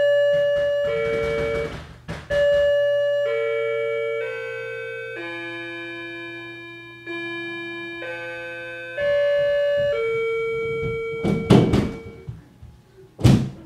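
Electronic doorbell chime playing a slow melody, one ringing note about every second, high and low notes in turn, for about ten seconds. Near the end come several heavy thumps, the loudest near the very end.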